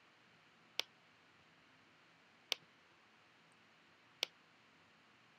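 Three sharp single clicks of a computer's pointing-device button, evenly spaced about a second and a half apart, over faint room hiss.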